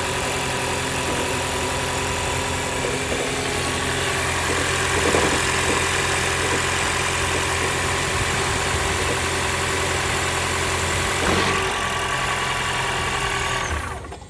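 Toyota Camry running at idle with a steady engine hum, carrying an unusual noise whose cause the owner cannot identify. There is a brief louder moment about five seconds in and a short knock near eleven seconds, and the sound cuts off near the end.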